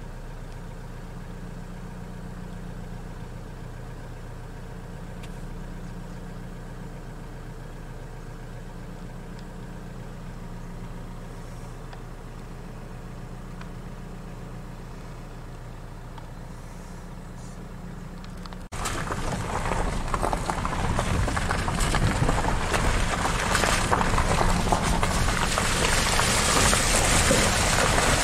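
Vehicle engine idling with a steady, even low hum. About two-thirds of the way through it cuts off abruptly, and a louder, even rushing noise takes over and builds toward the end.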